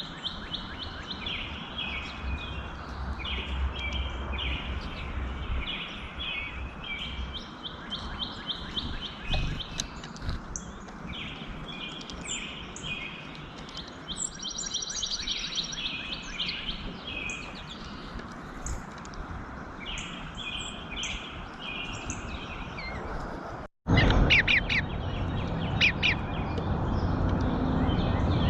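Small birds chirping over and over in quick series of short high notes, over a steady background hiss. After a brief break about 24 s in, the sound is louder and the chirps sharper.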